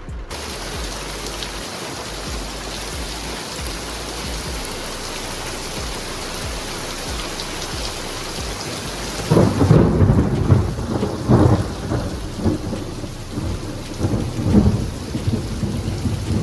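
Steady rain. From about nine seconds in, thunder rumbles over it in uneven surges.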